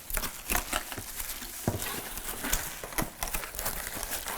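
Packaging being handled and crinkled as a multicooker pan is unwrapped, with many light clicks and taps and a few sharper knocks throughout.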